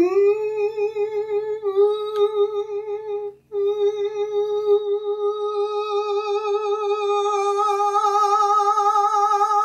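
Male voice holding a high head-voice note near A-flat 4, a singing exercise in leaning into a thin, closed sound. There are two long holds on the same pitch, split by a quick breath about three and a half seconds in. The second hold grows brighter and fuller toward the end, with vibrato.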